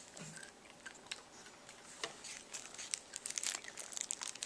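Faint crinkling and clicking of a plastic toothpaste tube and toothbrush handled in gloved hands as toothpaste is put on the brush. The clicks are sparse at first and come thick and fast in the second half.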